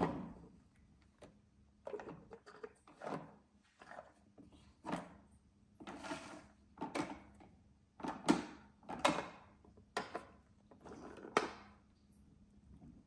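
A series of short plastic clacks and rattles from a toy garbage truck's side-loader arm worked by hand, lifting a toy wheelie bin up over the hopper and setting bins down on the floor.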